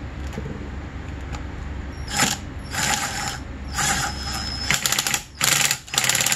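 Power ratchet on an extension run in a series of short bursts, tightening a hose clamp on the carburetor boot. The bursts start about two seconds in, and the last and longest has a fast, even ticking.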